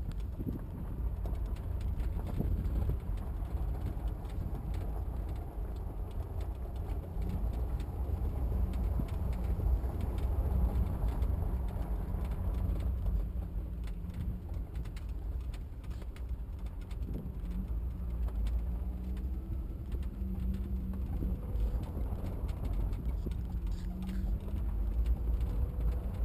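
Cabin noise inside a Suzuki 4x4 driving over a rough dirt trail: a steady low engine and road rumble, with many small knocks and rattles from the body jolting over bumps. The engine pitch rises and falls a few times as the driver works the throttle.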